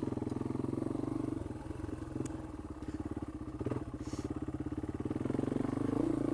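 Yamaha XT225's single-cylinder four-stroke engine running at low, steady revs under way, with a slight rise in throttle about six seconds in. A few faint clicks and knocks sound over it.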